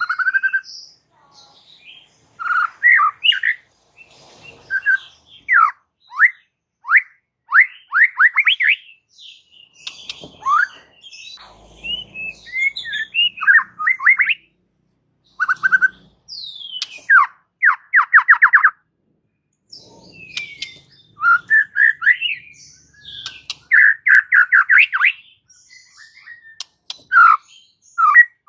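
White-rumped shama (murai batu) singing loud, varied phrases of clear whistled notes and quick rising and falling sweeps, with short gaps between phrases and a couple of fast runs of repeated notes. This is the full, vigorous "gacor" song of a male in song.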